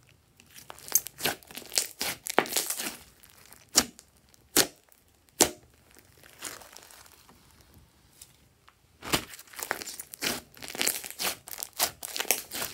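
Glossy slime being stretched, pressed and folded by hand, giving irregular crackling pops as trapped air bursts. A few single loud pops come around four to five and a half seconds in, then a quieter stretch, then another dense run of crackles near the end.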